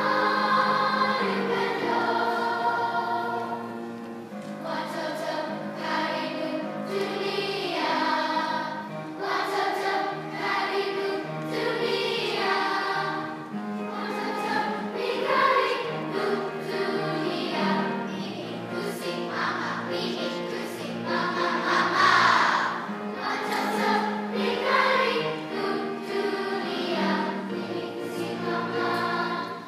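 Elementary-school children's choir singing a song, with held notes sung together.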